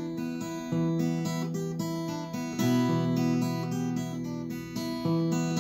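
Steel-string acoustic guitar fingerpicked in E minor, without singing. The chord changes about every two seconds.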